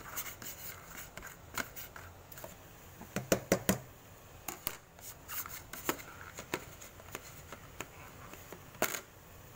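Kitchen clatter around a wok: scattered sharp clicks and knocks of utensils and cookware, with a quick run of about five taps about three seconds in and a last knock near the end.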